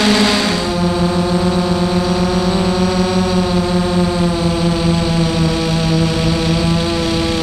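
Multirotor FPV drone's electric motors and propellers whining, picked up by the onboard camera: a steady pitched hum that rises and falls slightly in pitch. About half a second in the pitch steps down.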